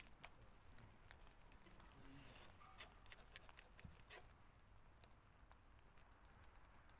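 Near silence with a scatter of faint, light clicks and taps, most of them bunched about three to four seconds in.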